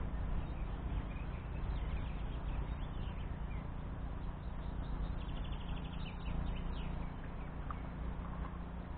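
Wind noise on the microphone, steady and dull, with a few faint bird chirps and a brief fast trill a little past halfway.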